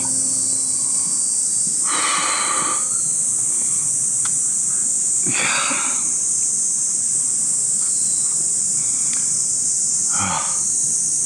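A steady, high-pitched insect chorus, with three short breathy vocal sounds from a man, about two, five and ten seconds in.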